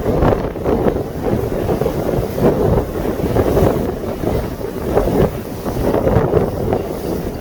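Wind buffeting the microphone on a moving boat, with water rushing past the hull underneath. The gusts swell and drop every second or so.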